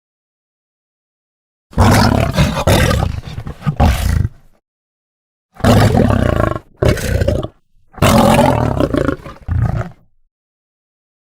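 Lion roaring and growling in three loud bouts of about two to three seconds each, separated by dead silence.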